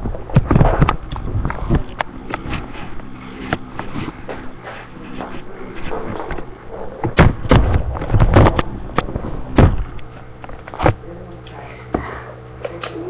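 Handling noise: irregular knocks and thumps as the webcam is moved and set down on the table, thickest between about seven and ten seconds in, over a faint steady hum.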